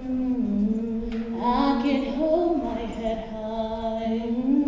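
Several voices singing a cappella in harmony, holding long notes that slide slowly from one pitch to the next.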